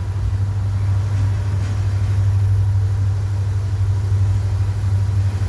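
Diesel locomotive engine running with a steady low drone: a freight train's distributed-power unit (DPU) approaching within the train.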